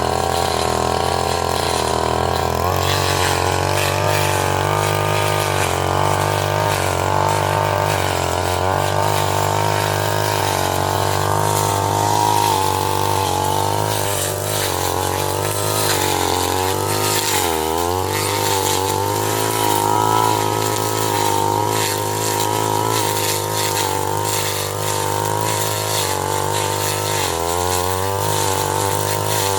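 Small engine of a grass cutting machine running steadily. Its pitch dips and recovers about halfway through and again near the end.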